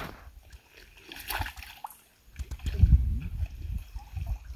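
Muddy pond water sloshing and splashing around a wading man and a large pirarucu (arapaima) tangled in a cast net as it is lifted. Quiet at first, with the louder, deeper sloshing setting in about two seconds in.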